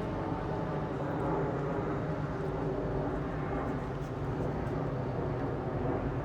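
Class 360 electric multiple unit running at the platform: a steady hum with several held tones layered over low rumble.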